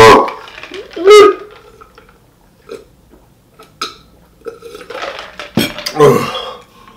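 A man's pained wail and a short yelp from the burn of very spicy hot chicken, a few small clicks as he drinks, then a loud breathy exhale near the end.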